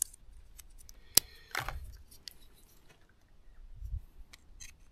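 Handling clicks of plastic Quad Lock motorcycle mount parts being fitted together by hand: one sharp click about a second in, then several smaller clicks and soft bumps.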